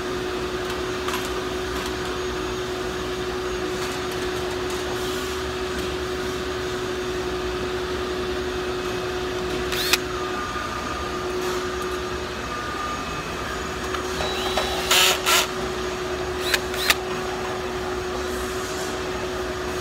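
Steady machine hum holding one constant tone. Over it, a sharp click about halfway, then near the end a few short bursts of a cordless drill whirring briefly.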